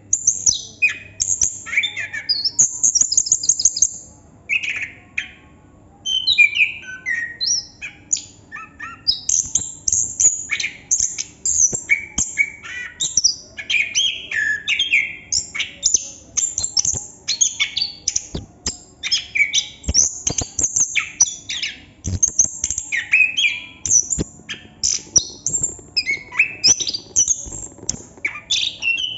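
Chestnut-capped thrush singing a continuous rolling song: a rapid, varied run of high chirps, trills and whistled notes, with a short break about five seconds in.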